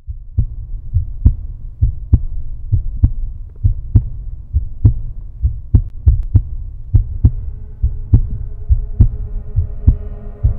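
Deep heartbeat-like thumping laid over the video's opening, the beats coming roughly once a second, some in close pairs. Held tones begin to come in near the end.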